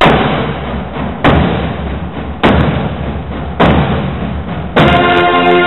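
Dramatic intro music: four heavy, booming percussion hits about a second apart, each dying away. Held orchestral brass chords come in near the end.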